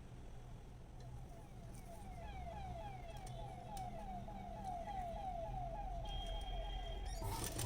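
A faint, rapidly repeating chirp, about three short pitch glides a second, over a low steady hum. About seven seconds in, a sewing machine starts stitching, louder than the chirps.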